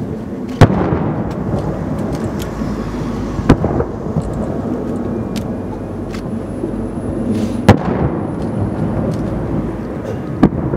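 Aerial firework shells bursting: four sharp booms, spaced about three seconds apart, each trailing off in a long echo.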